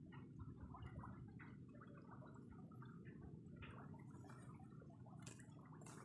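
Faint outdoor field ambience: a low, steady wind rumble on the microphone, with scattered soft ticks and light rustles of rice leaves brushing past, a few brighter rustles about five seconds in.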